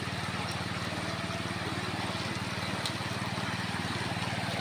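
Shallow rocky river rushing over stones in a steady, even wash. Under the water runs a steady, low, rapid throb, like a small engine running.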